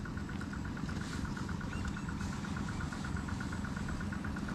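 A small engine running steadily, with a low hum and an even, rapid pulse.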